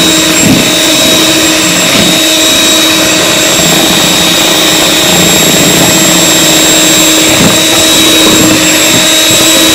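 Electric kitchen mixer running steadily at one speed, its beaters mixing flour and baking powder into cupcake batter, with a constant motor whine.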